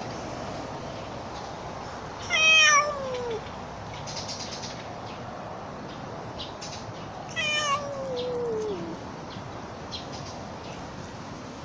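Orange-and-white tabby cat meowing twice, each a drawn-out call that slides down in pitch. The first, about two seconds in, is the louder; the second, about five seconds later, is longer and trails off lower.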